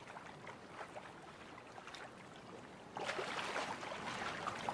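Water lapping with small splashes around swimming red-throated divers, louder and busier from about three seconds in.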